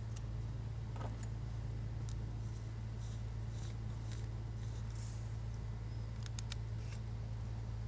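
Faint scattered clicks and creaks of an M3 machine screw being driven into a tapped 3D-printed plastic handle, over a steady low hum.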